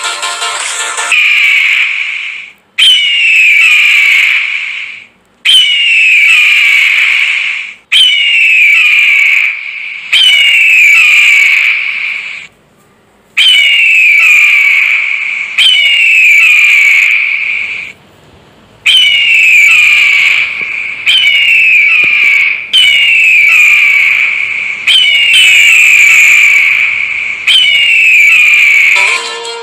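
Eagle scream sound effect: a loud, hoarse, descending screech, repeated a dozen or so times, each lasting about two seconds with short gaps between. Electronic music fades out about a second in.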